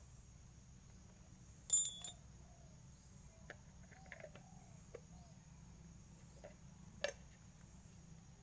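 Metal tools and engine parts being handled, with no engine running. A sharp ringing metallic clink comes about two seconds in, then a few faint clicks and taps and another sharp tap near the end, over a low steady hum.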